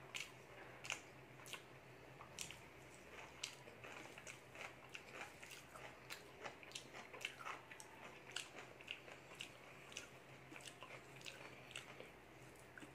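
Close-up chewing of a mouthful of rice and dal, with short wet mouth clicks and smacks at an irregular pace of one to three a second.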